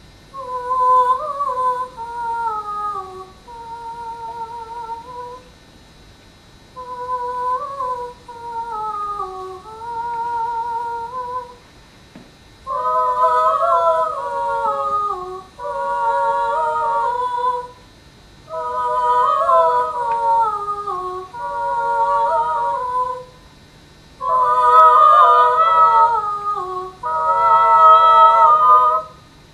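Wordless singing in a high voice, a slow melody hummed in short phrases with pauses between them. Partway through it grows louder and a second voice joins in harmony.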